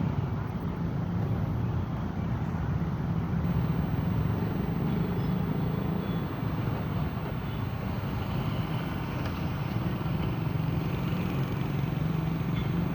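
Excavator's diesel engine running steadily, with a low, even drone and no distinct knocks.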